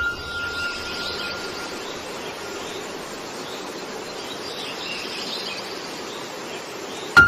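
Steady background hiss with faint high chirps, opening with a short ringing tone that fades over about a second and a half.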